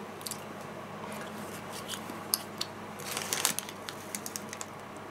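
Faint handling sounds from squeezing a small plastic sauce packet out onto paper: scattered light clicks and a soft squishing, crinkling rustle about three seconds in.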